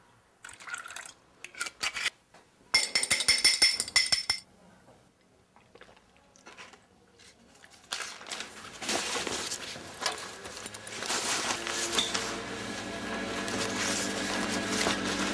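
Glassware clinking and liquid poured from a bottle into a glass, the loudest stretch about three seconds in. Music comes in during the second half and grows.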